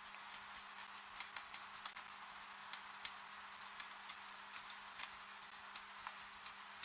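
Steady rain falling, an even hiss with many irregular drops ticking and tapping close by, over a faint steady low hum.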